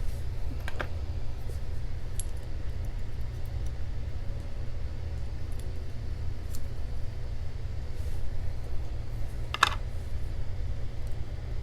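Small, scattered metal clicks and taps of a Master Lock 6835 padlock being taken apart by hand, with one sharper click near the end.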